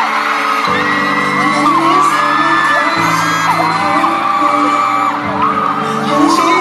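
Slow background music from a campaign video playing through an arena's sound system, held chords changing every two seconds or so, with a crowd of fans screaming high and long over it.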